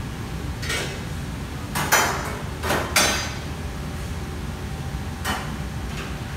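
Metal cookware in a commercial kitchen clanking: several sharp clangs of utensils against a wok and pans, loudest about two and three seconds in. A steady rushing noise runs underneath.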